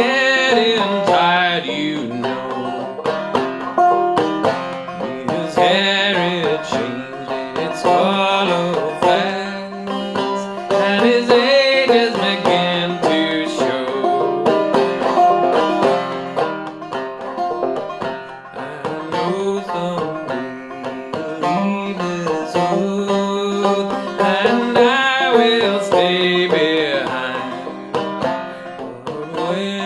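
Five-string banjo played clawhammer style in open fCFGC tuning: a continuous run of picked and brushed notes in an old-time tune.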